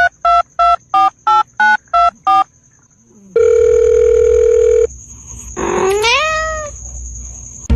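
Telephone keypad tones: about seven quick two-note dialing beeps, then a steady tone held for about a second and a half. Near the end comes a single rising cat meow about a second long.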